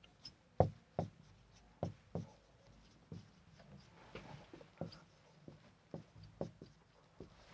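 Marker pen writing on a whiteboard: irregular taps and short scratchy strokes as the words are written out.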